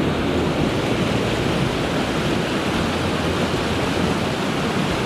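Steady rush of a mountain stream running high after recent rain.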